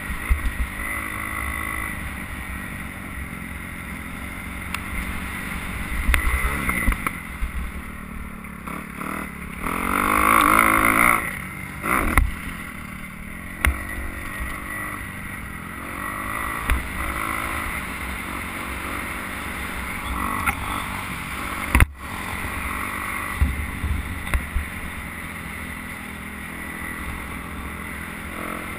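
Dirt bike engine revving up and down through the gears under way, heard through a helmet camera with wind rush. The engine climbs sharply in pitch and is loudest about ten seconds in.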